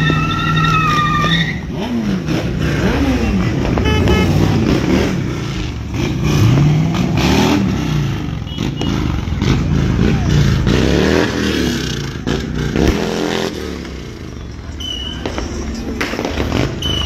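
A car engine revving hard, its pitch rising and falling over and over, as at a street sideshow where cars spin donuts. Scattered sharp pops sound through it.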